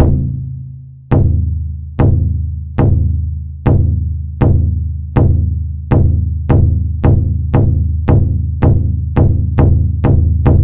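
Deep war drum struck in single heavy beats, each ringing out low; the beats speed up from about one a second to about two and a half a second.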